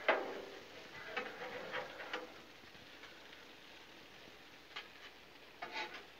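Metal spatula clacking and scraping against the steel griddle top and a Lodge cast iron serving platter as diced potatoes are pushed onto the platter. A sharp clack opens it, a few clattering scrapes follow over the next two seconds, and more come near the end.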